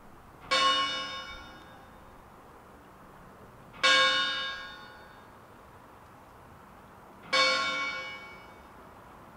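Church bell tolling: three single strikes about three and a half seconds apart, each ringing out and fading away.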